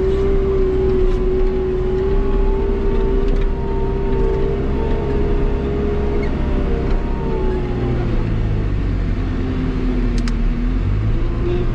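Wheel loader's diesel engine and drivetrain running steadily, heard from inside the cab while it pushes snow with a pusher box. The engine note drops about eight seconds in, then picks back up near the end.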